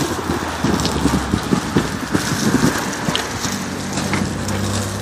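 Wind rushing over the microphone of a handheld phone on a moving bicycle, with irregular knocks and rattles as the bike rolls over the concrete sidewalk's slab joints. A steady low vehicle engine hum joins about three and a half seconds in.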